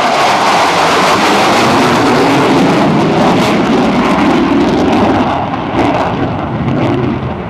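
McDonnell Douglas F-4E Phantom II's two J79 turbojets, a loud, dense jet noise with a few sharp crackles, easing slightly near the end.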